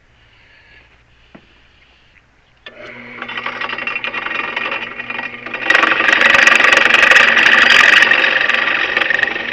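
An electric drill starts up about two and a half seconds in and runs steadily. About three seconds later it grows much louder and rougher as the bit bites into the oiled metal, drilling the hole for the shaft.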